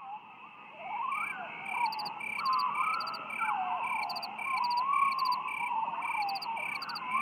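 Added background music: a gliding melody line over an evenly spaced pulsing beat of about two pulses a second.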